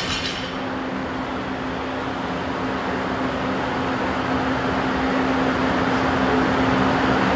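Steady mechanical whooshing noise with a constant low hum, growing slightly louder.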